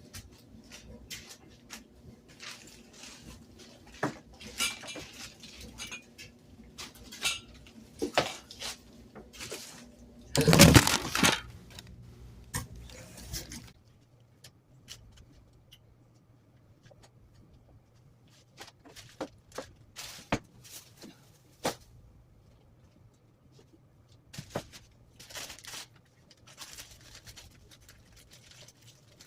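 Plastic parts of a portable shampoo bowl being handled and set down: scattered knocks and rustles, with a louder clatter about ten seconds in.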